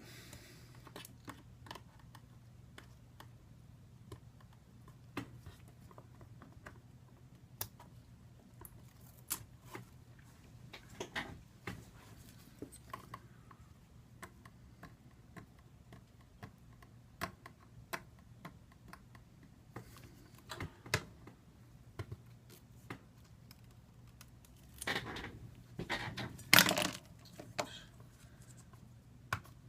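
Scattered small clicks, taps and short scrapes of hand work stripping old adhesive off an iPad 2's glass and frame, with a louder cluster of scraping near the end, over a faint steady low hum.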